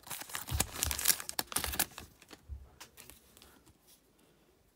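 Foil trading-card pack wrapper being torn open and crinkled for about two seconds, then going much quieter with a few faint clicks and rustles as the cards are handled.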